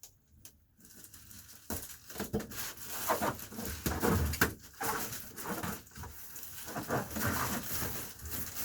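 Irregular crinkling and rustling with scattered light clicks, from Reflectix foil-bubble insulation and foil tape being handled and smoothed by hand.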